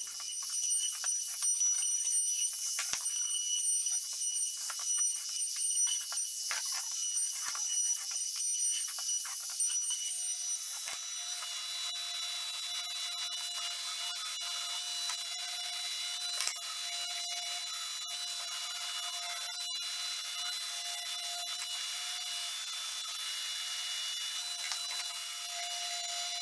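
A compact trim router whines at high pitch and cuts unevenly along the edges of a wooden frame. About ten seconds in it gives way to a Festool random orbital sander, fitted with dust extraction, running steadily as it sands the frame.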